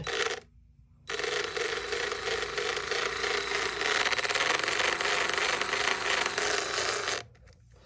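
DeWalt DCF885 brushed 20V impact driver running unloaded at low speed for about six seconds, starting about a second in and cutting off near the end. It is a worn-out tool and is not making healthy sounds; the owner places the noise somewhere other than the hammer mechanism.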